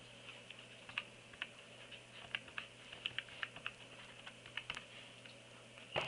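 Keys of a small white USB mini keyboard clicking lightly as a sentence is typed: about twenty uneven, halting keystrokes.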